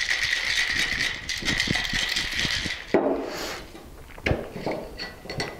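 Ice rattling hard inside a Boston cocktail shaker, steel tin and mixing glass, shaken for about three seconds before stopping abruptly. A few knocks and clinks follow as the shaker is set down on the bar and handled.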